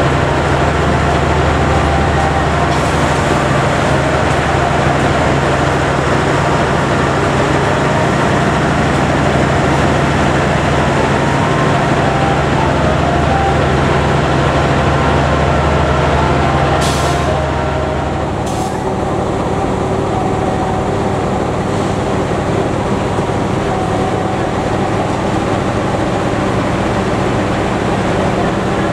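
GE-built CC206 diesel-electric locomotive running close by with a steady engine hum. About two-thirds of the way through there are two short hisses of air, and the engine's note changes.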